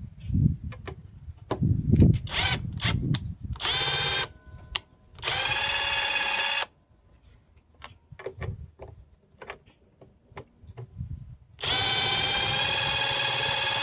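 Hercules cordless impact driver running in short bursts as it backs steel screws out of a steel plate, with clicks and knocks between runs. About two seconds from the end it starts a longer steady run.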